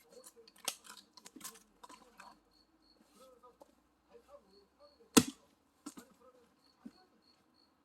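An axe splitting firewood: one sharp, loud strike about five seconds in, with lighter knocks and clatter of wood pieces around it. A faint, repeated high chirp sounds in the background.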